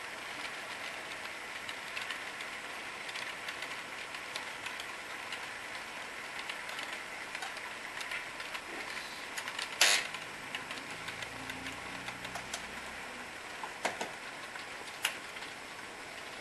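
HO scale model freight train running past on the layout track: a steady rattly hiss of many small wheel clicks, with a faint steady high hum. A sharp click about ten seconds in, and two smaller clicks near the end.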